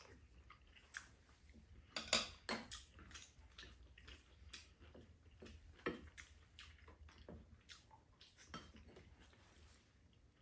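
Spoons and chopsticks clinking and scraping against ceramic bowls during a meal, a scatter of short faint clicks with the loudest few about two seconds in, with quiet chewing between.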